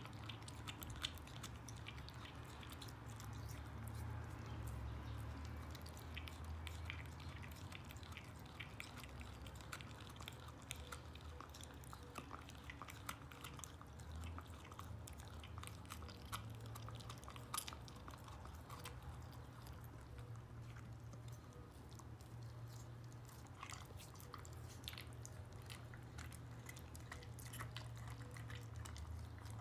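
Border Collie gnawing and chewing a raw meaty bone: irregular small clicks and crunches of teeth on bone and meat, faint and continuing throughout.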